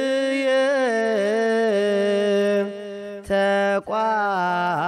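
Slow melismatic male chant in Ge'ez, Eritrean Orthodox Tewahedo style: long held notes that bend and waver. The voice drops away briefly about three seconds in, with a sharp click, then carries on.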